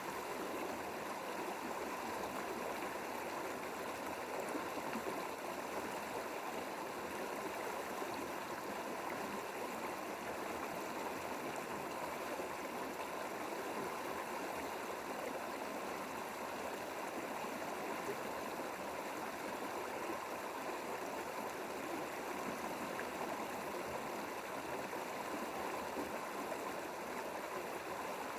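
Mountain stream water rushing and gurgling over rocks, steady and unbroken.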